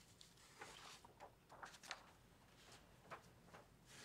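Near silence: room tone with a few faint, short rustles and clicks.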